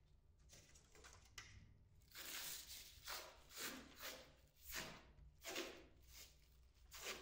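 Blue protective plastic film being peeled and pulled off a twin-wall polycarbonate panel: a run of faint crinkling, rustling swishes, a bit more than one a second, starting about two seconds in.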